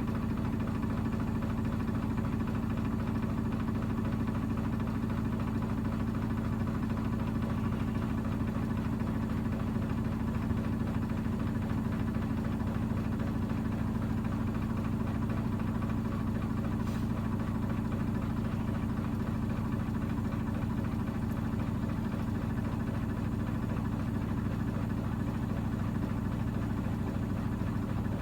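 Miele washing machine running with a steady, even motor hum and cabinet vibration.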